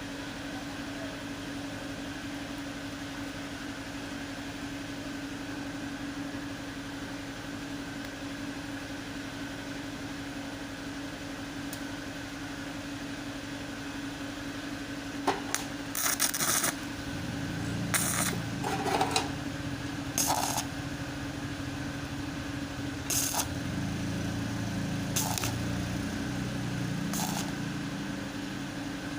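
Steady machine hum with a constant low whine. About halfway through, a few sharp knocks and clinks come at irregular intervals, with some low rumbling handling noise between them.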